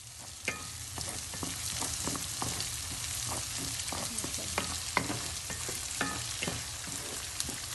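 Food sizzling in a hot frying pan while it is stirred, with frequent clicks and knocks of the utensil against the pan, some ringing briefly.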